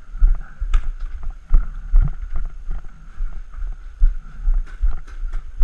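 Irregular low thumps and rustling from a GoPro carried by a moving player, with a few sharp clicks about a second in and near the end.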